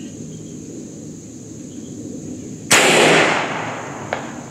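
BinTac MCAR .457 big-bore air rifle firing: one sharp, loud report about two and a half seconds in that trails off over about a second. A small click follows near the end.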